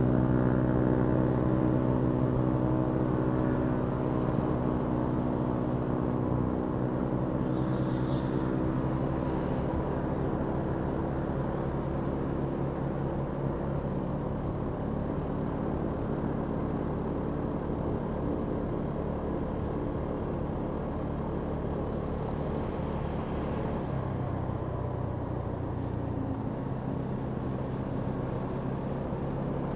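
Kymco Downtown 350i scooter's single-cylinder engine running on the move. It is strongest at first, then eases off about six seconds in to a quieter, steady drone.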